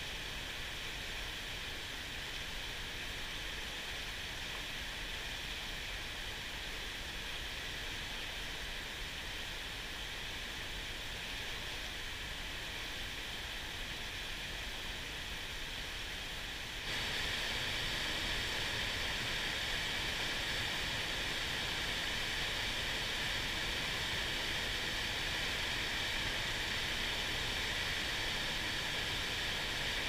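Steady rushing of a mountain stream's rapids, a little louder from about 17 seconds in.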